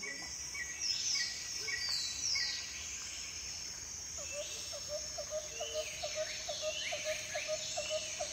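Outdoor rural ambience of birds and insects: a steady high insect drone, with birds calling in repeated falling whistles and short high notes. From about four seconds in, a low call repeats about three times a second.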